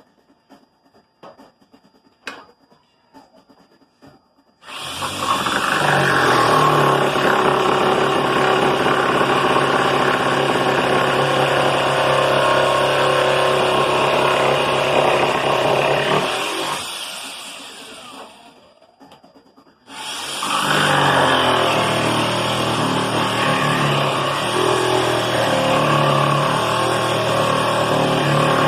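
An electric power tool's motor starts and runs steadily with a low hum. Around two-thirds of the way through it spins down over a few seconds and stops, then starts up again and runs on.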